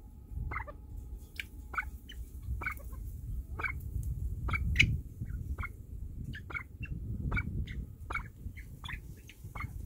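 Golden pheasants giving a run of short, sharp calls, roughly one a second, each dropping slightly in pitch, over a low rumble.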